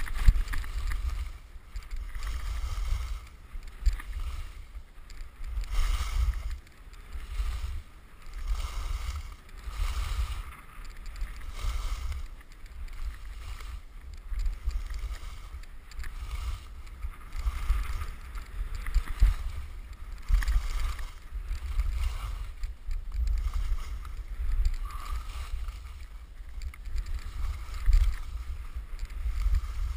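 Skis sliding down a groomed piste, their edges scraping and hissing on the packed snow in swells every second or so as the turns link up. Wind rumbles on the camera's microphone throughout.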